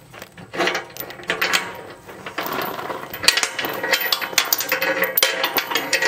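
Heavy steel log chain rattling and clinking as it is pulled through a slot in a steel pallet fork frame and latched, the links knocking on each other and on the metal. The clatter gets busier and louder about halfway through.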